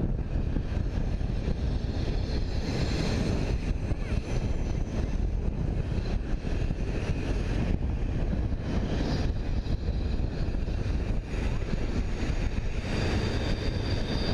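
BNSF double-stack intermodal freight train's well cars rolling past: a steady low rumble of wheels on rail. Near the end a faint, high wheel squeal sets in as the cars take the curve.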